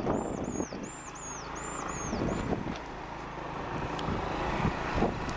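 Small motorcycle running along a dirt track, its engine mixed with wind and road noise. A quick series of high chirps sounds over it in the first two and a half seconds.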